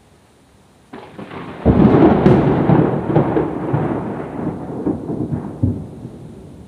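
A nearby thunderclap: a sudden crackle about a second in, then a loud rolling rumble that slowly dies away.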